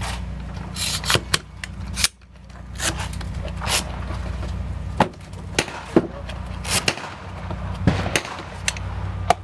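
Sharp clicks and knocks of a DRD Tactical M762 takedown rifle's parts being handled and fitted, with parts taken from and set into a hard case, over a steady low hum.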